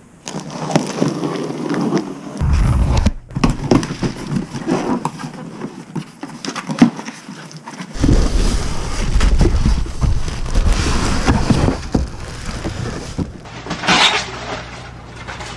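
Unpacking a boxed electric scooter: cardboard box handled and opened, plastic wrapping crinkling and rustling, and foam packing blocks pulled free, with repeated clicks and heavy bumps against the box.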